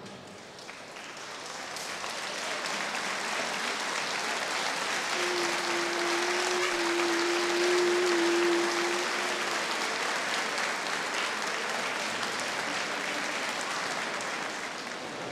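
Crowd of spectators applauding, swelling over the first few seconds and then carrying on steadily. For about five seconds in the middle, a single steady low tone is held over the clapping.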